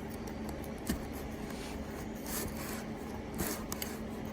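Light scrapes and clicks of a butter knife working a dry-rotted solid flat-free tire off a power wheelchair's metal wheel rim, over a steady low hum.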